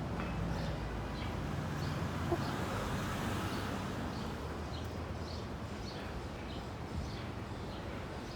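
Steady low rumble of street traffic, with a vehicle engine humming. Light footsteps tick about every two-thirds of a second over it.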